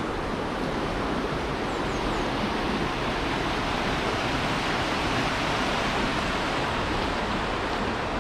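Steady rush of a fast-flowing beck running high, full of winter floodwater.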